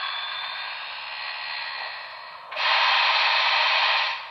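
Broadway Limited Blue Goose model locomotive's Paragon 4 sound decoder playing steam sounds through its small speaker: a steady hiss with a faint high whine that fades within the first second, then a louder burst of steam hiss about two and a half seconds in, lasting about a second and a half.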